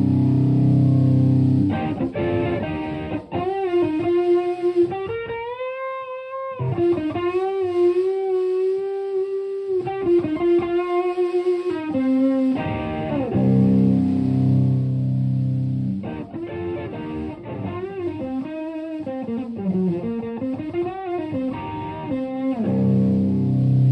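Stratocaster electric guitar through an Ibanez Tube Screamer TS-808 overdrive pedal into a Marshall Plexi amp and 4x12 cabinet, with a mildly overdriven tone. It plays chords, then single-note lead lines with string bends and wavering vibrato on long held notes, then chords again.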